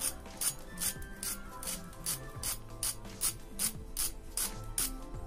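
A fork scratching repeatedly across the crisp, deep-fried crust of an aloo paneer cutlet, about three short rasping strokes a second, showing how crunchy it is.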